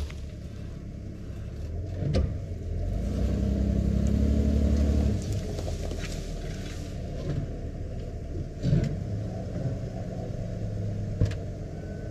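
Old Ford F-150 pickup engine running as the truck moves slowly, swelling louder for about two seconds near the middle, with a few scattered knocks.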